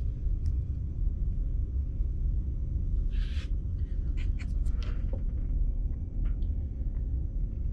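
Handling noise: a steady low rumble with a short rustle about three seconds in and a few light clicks after it, as plastic action figures are stood up on a table and the camera is repositioned.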